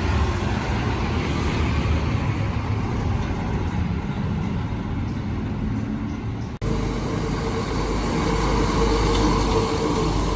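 Container truck running on the road: a steady engine rumble with road noise. About two-thirds of the way through, the sound cuts abruptly to another take, where a steady hum joins the rumble.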